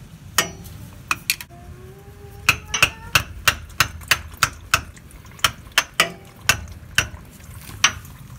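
A screwdriver being hammered through a spin-on oil filter canister to punch a drain hole: a series of sharp metallic strikes, about three a second, some with a brief ring.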